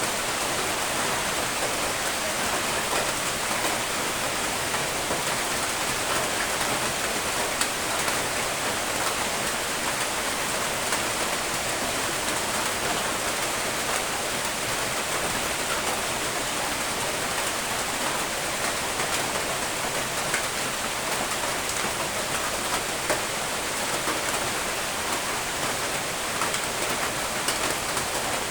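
Steady rain falling on a surface, an even hiss with scattered small drop ticks.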